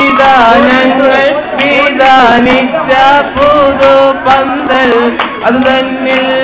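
Group of young men singing a vattappattu song together in Malayalam style, with sharp hand claps keeping the rhythm.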